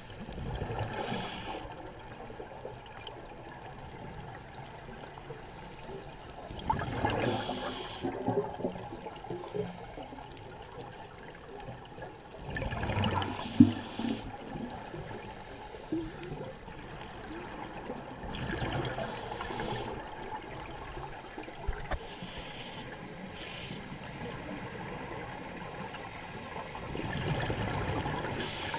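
Underwater breathing through a scuba regulator: bursts of exhaled bubbles gurgling past the housed camera roughly every six seconds, over a steady underwater hiss.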